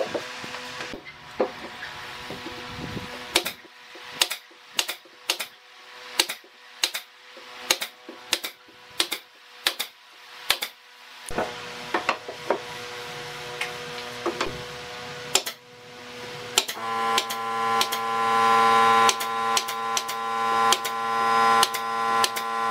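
Pneumatic nail gun firing repeatedly into pine boards, one sharp shot about every half second to second. About three-quarters of the way through, a steady hum comes in under the shots.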